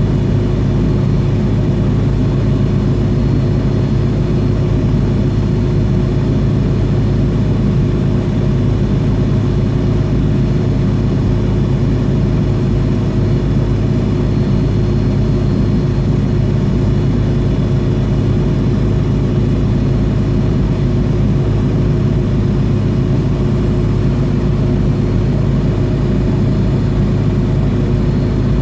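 Cabin noise inside an MD-80 airliner, its rear-mounted Pratt & Whitney JT8D turbofan engines running at low power before takeoff. The sound is a loud, steady rumble with a constant hum.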